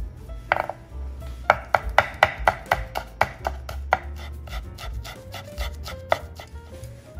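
Kitchen knife shredding rolled-up shiso leaves on a wooden cutting board. After a single cut, a quick even run of knife strikes on the board comes about a second and a half in, about four a second. The strikes grow fainter and sparser after about four seconds.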